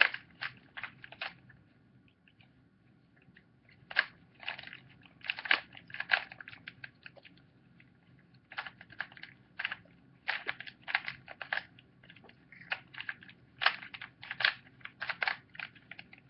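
Plastic clicking and clacking of a standard 3x3 Rubik's Cube's layers being turned rapidly by hand during a solve, in irregular runs of quick clicks with brief pauses. The freshly reassembled cube turns a little tight.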